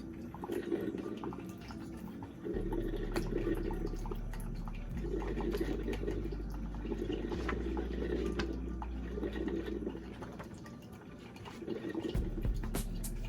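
Mr. Coffee Iced coffee maker brewing, with water gurgling and dripping, under background music whose bass note changes about every two and a half seconds.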